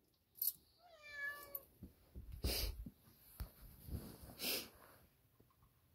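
A domestic cat meows once about a second in, a short call that falls in pitch. Some rustling and scuffling noises follow.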